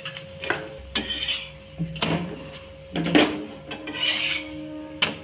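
Steel spatula knocking and scraping against an iron tawa as a moong dal chilla is flipped and handled, several separate clinks about a second apart.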